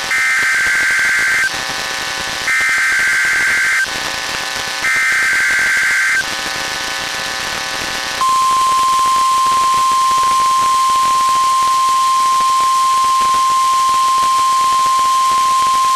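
NOAA Weather Radio test tones: three identical bursts of SAME digital header data, screeching two-tone data bursts about a second and a half each, then the steady 1050 Hz warning alarm tone, which starts about eight seconds in and holds without a break. Together they are the weekly test of the station's alarm signal that switches on weather alert receivers.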